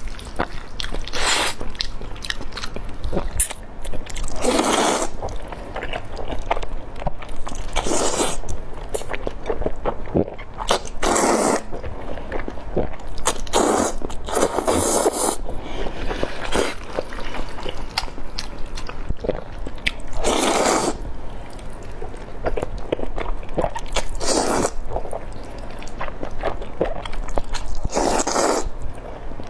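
Close-miked eating: crunchy bites and chewing, with about nine louder crunching bites a few seconds apart over steady smaller chewing sounds.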